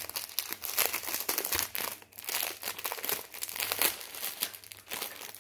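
Thin plastic packaging crinkling and rustling in the hands, irregular and crackly, as a plastic-wrapped bundle of small bags of diamond-painting drills is unwrapped and handled.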